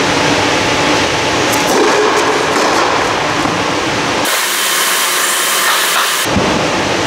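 Loud, steady machine-like rushing noise. Its low rumble cuts out abruptly about four seconds in and comes back about two seconds later.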